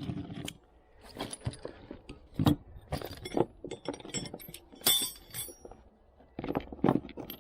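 Metal tools and loose car parts clinking and knocking together, a string of irregular sharp clinks, some ringing briefly.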